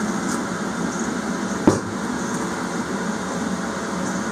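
Steady mechanical rush in the background, with a single thump about one and a half seconds in as the diesel heater's cast aluminium heat-exchanger housing is set down on the cloth-covered bench.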